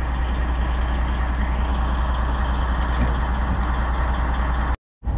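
Milk tanker truck idling with a steady low rumble, cutting off suddenly near the end.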